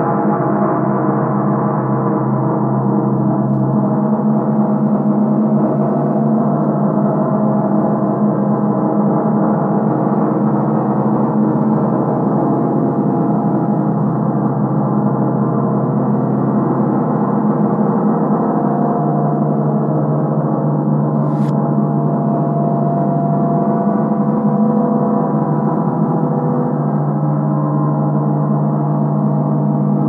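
Gong played in reverse: a dense, sustained wash of many overtones at a steady level, strongest in a low hum, with a faint click about two-thirds of the way through.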